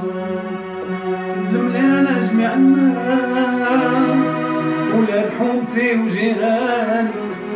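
Korg keyboard played live: a lead melody that slides and bends in pitch over sustained chords and bass notes.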